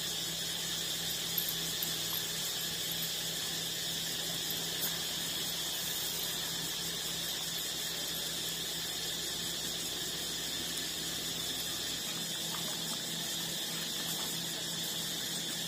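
Steady high-pitched drone of insects, unbroken throughout, with a low steady hum underneath.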